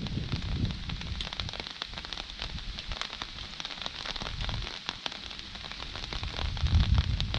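Heavy thunderstorm rain falling, with a dense patter of sharp drop ticks. A low rumble fades in the first second and swells again near the end.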